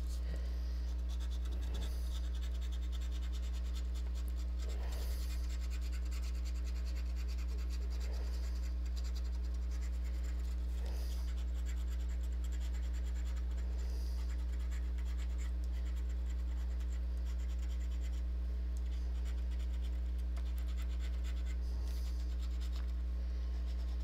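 A coin scraping the coating off a scratch-off lottery ticket in repeated strokes, over a steady low electrical hum.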